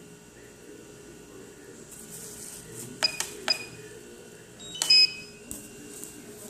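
Short high electronic beeps, each starting with a click: two about three seconds in, half a second apart, and a louder cluster near five seconds, over a low steady hum.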